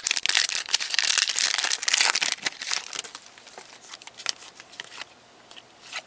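Trading-card pack wrapper being torn open and crinkled, dense crackling for about the first two seconds, then scattered light clicks and ticks to the end.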